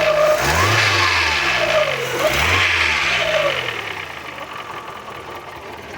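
Fiat Fire 1.0 four-cylinder engine revved in a few quick blips, then dropping back to a steady idle about three and a half seconds in. It has a strange noise since its cylinder head was replaced.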